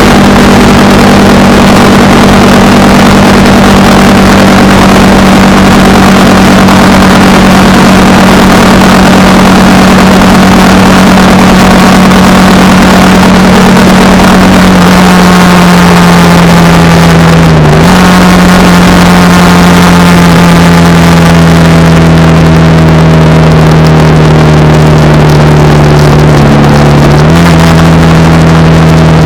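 Honda Rebel 300's single-cylinder engine running at a steady cruise with the rush of wind, its pitch sinking slowly, with two brief dips and recoveries, about two-thirds of the way in and near the end.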